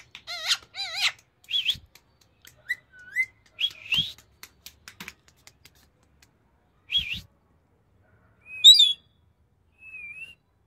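Rose-ringed parakeet giving a string of short wavering whistles and chirps, each a second or more apart, the loudest about nine seconds in. A few faint clicks fall between the calls.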